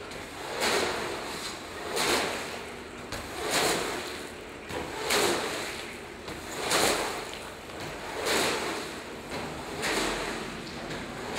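BMX bike tyres rolling over the concrete of a drain full pipe, swelling and fading about every second and a half as the rider carves from wall to wall across the wet floor.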